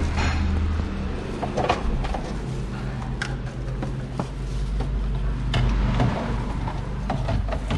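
Metal clinks and knocks of perforated stainless-steel strainer cups and steel pans being handled, several separate strikes about a second apart, over a low steady hum.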